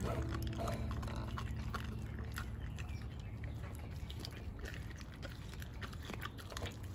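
A high-content wolfdog chewing a raw meaty bone, with irregular wet crunches and clicks from its jaws.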